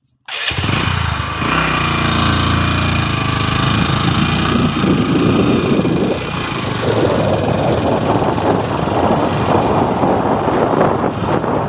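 A small engine running steadily, starting abruptly just after the opening.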